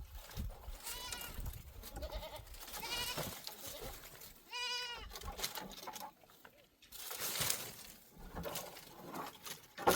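Goats bleating: several wavering bleats in the first half, then a brief rustling noise about seven seconds in.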